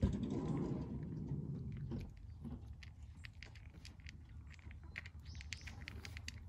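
Cat crunching dry kibble: a run of small sharp clicks from its chewing. A low rushing noise starts suddenly at the outset and lasts about two seconds, louder than the chewing.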